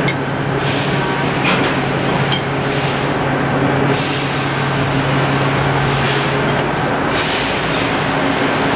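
Trumpf TruBend 5130 hydraulic press brake running with a steady low hum that stops about two-thirds of the way through. Constant workshop machine noise runs under it, broken by several short hisses.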